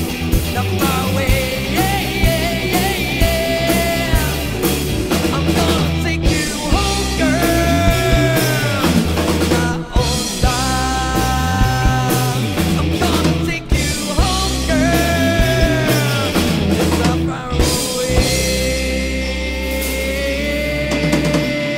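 Studio recording of a rock song played by a band of two electric guitars, bass guitar and drum kit, with bending lead lines. In the last few seconds a long held note rides over a sustained bass note.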